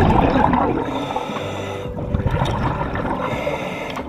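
Underwater bubbling and rushing water heard through an underwater camera, loudest in the first second and then settling into a steadier wash.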